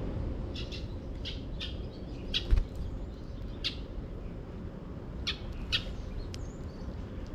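Eurasian tree sparrows giving about eight short, high chirps, singly and in quick pairs, over a steady low rumble. A low thump about two and a half seconds in is the loudest sound.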